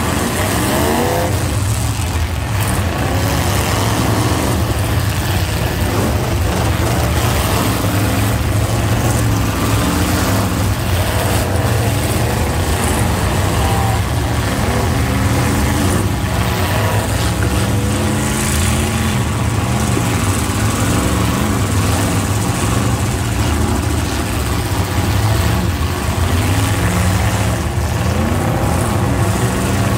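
Several demolition derby cars' engines running and revving together, loud and continuous, with repeated rising and falling revs as the cars drive and ram.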